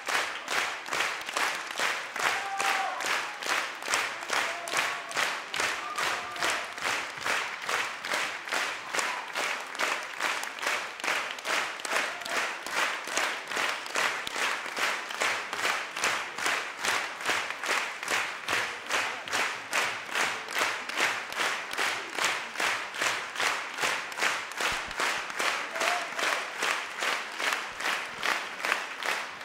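Large audience clapping in unison, a steady rhythmic applause of about two and a half claps a second, with a few faint shouts mixed in.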